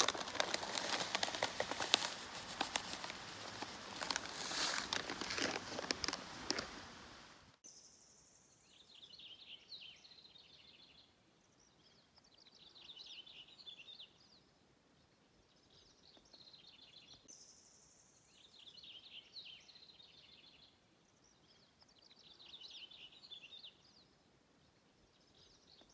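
Crinkling of a crunchy kale chip bag and crunching of the chips being eaten, dense and crackly. About seven seconds in it cuts off abruptly, leaving a songbird repeating a short high trilled phrase every three to four seconds, some phrases opened by a brief higher whistle.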